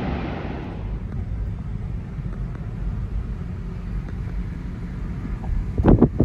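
Low, steady road rumble inside a moving car's cabin, after a rushing hiss that fades out in the first second. A little before the end, three or four loud thumps.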